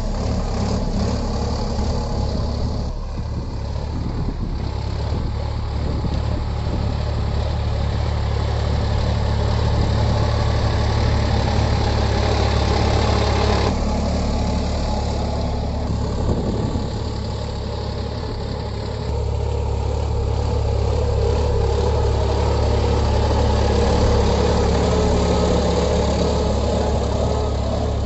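Solis 5015E tractor's diesel engine running steadily while ploughing. Its note shifts a few times, dipping about three seconds in and again a little before two-thirds through.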